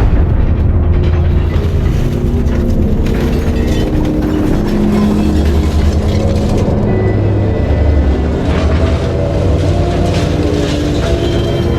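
Background music with a heavy low drone and held notes that change pitch, starting abruptly and running steadily.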